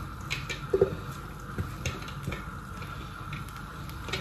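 Minced meat being pushed out of a plastic container into a hot frying pan with a silicone spatula: the pan sizzles softly, with a few light taps and scrapes of the spatula against the container.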